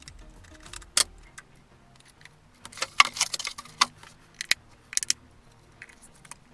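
Sharp plastic clicks and rattles of AA batteries being handled and pressed into a multimeter's battery compartment, with a cluster of clicks about three seconds in.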